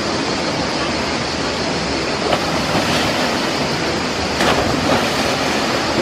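Waterfall pouring into a pool, a steady rushing noise that holds at one level.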